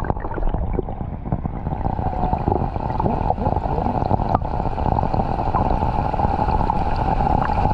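A boat running on the water: a steady motor hum over a rumble of water and wind noise, with a few sharp knocks.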